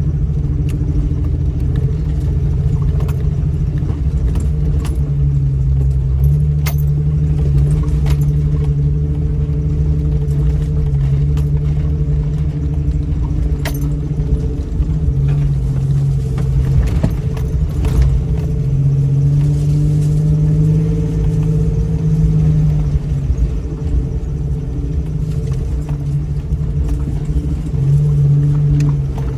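Lifted 2000 Jeep Cherokee engine running steadily as it crawls along a rough 4x4 trail, its note shifting up and down, with scattered clicks and rattles through the ride.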